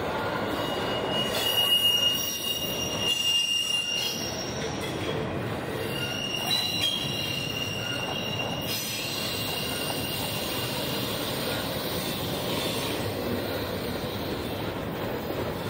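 Norfolk Southern double-stack container train rolling past, with a steady rumble of wheels on rail. A high-pitched wheel squeal rings out near the start and again around the middle.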